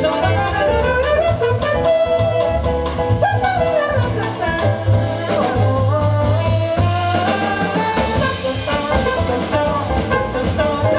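Live jazz band playing a samba: trumpet and a woman's voice carrying the melody over piano, double bass and drum kit.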